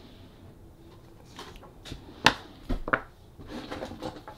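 Handling of a clear acrylic stamp block: a few short, sharp clicks and taps as it is inked on an ink pad and set down on a craft mat, the loudest about two seconds in, followed by soft handling noise of paper.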